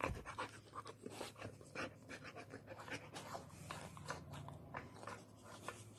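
A dog panting in quick, uneven breaths with its nose at a plastic slide-puzzle treat toy, along with light clicks and scrapes from the toy as it searches for treats.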